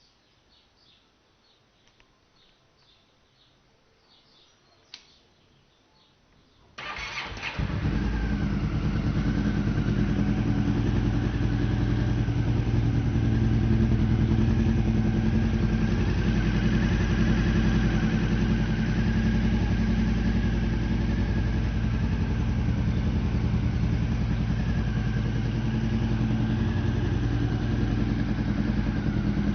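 Honda CB 500 parallel-twin motorcycle with a Coyote RS-5 aftermarket exhaust: it cranks and catches about seven seconds in, then idles steadily through the exhaust. Before the start there is near silence with faint bird chirps and a single click.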